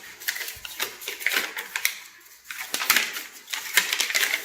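Quick, irregular clicks and crinkling as packaging and small plastic shower-filter parts are handled during unboxing.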